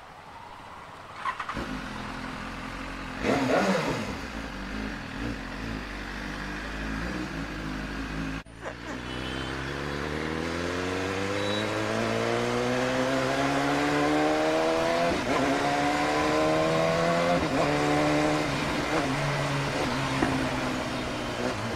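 BMW S1000RR's 999 cc inline-four engine heard from the saddle: a short rev about three seconds in, then from about nine seconds the bike pulls away with the engine note climbing steadily, dropping back at upshifts about fifteen and eighteen seconds in. Wind and road noise run underneath.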